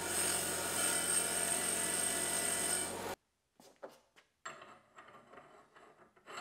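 A power tool running steadily with a high whine, stopping abruptly about three seconds in. A few light knocks and clicks follow.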